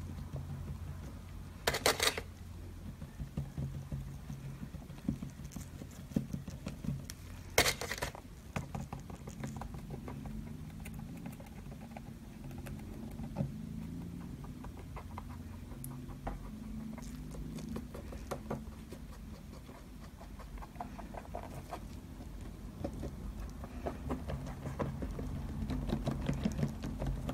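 Small irregular taps and clicks from painting tools and ink bottles being worked over paper, over a low steady hum, with two short hissing bursts about two seconds and eight seconds in.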